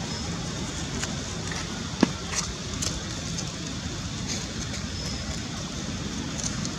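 Steady low rumbling background noise with a few faint high ticks, and one sharp click about two seconds in.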